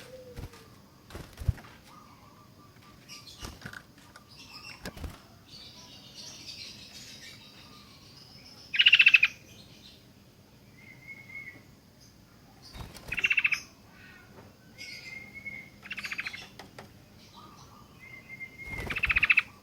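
Sooty-headed bulbul calling: short whistled notes between four loud, rasping bursts of rapid pulses, each about a second long and a few seconds apart. A few sharp knocks sound in the first few seconds.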